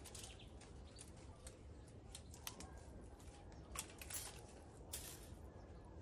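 Faint, scattered clicks and crackles, irregular and a second or so apart, of hands working at dry branches and iron wire mesh tangled around a cypress trunk.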